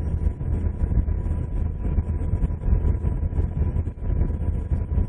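UH-60 Black Hawk helicopter's rotor and turbine noise as heard in the crew's radio headset feed: a steady low drone with a thin steady whine above it.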